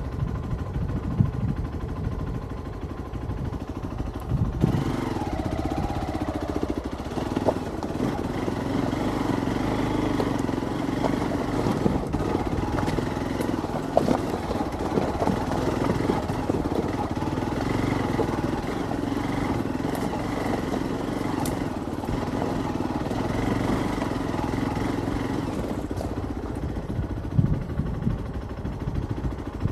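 Hero XPulse 200's single-cylinder engine riding off-road over rocky ground. The engine note rises about five seconds in and holds steady under throttle until near the end, then drops back, over a constant low rumble and scattered sharp knocks.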